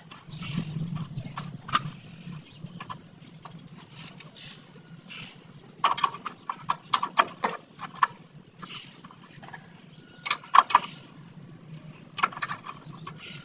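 Irregular knocks and clicks of hand tools at work, in several quick clusters, over a low steady hum.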